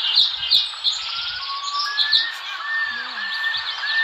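Recorded birdsong, a dense chatter of chirps with clear whistled notes, played by the Animal 4D+ augmented-reality app as the sound for its kangaroo.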